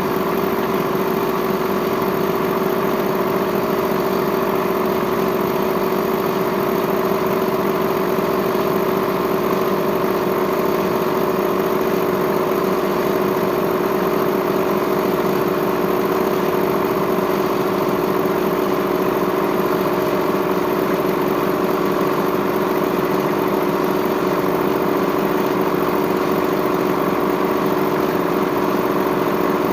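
Steady machine hum from a running motor, even and unchanging.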